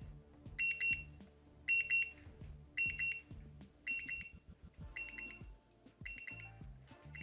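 Kungfuking alarm clock charging station's alarm beeping: bursts of about four quick high-pitched beeps, repeating roughly once a second. This is the alarm's faster, escalating stage, which speeds up the longer it goes unsnoozed.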